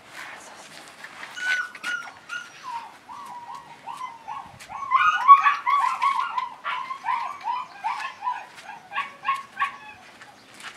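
German Shepherd puppy yipping and whining, a quick run of short high cries that is loudest about five seconds in.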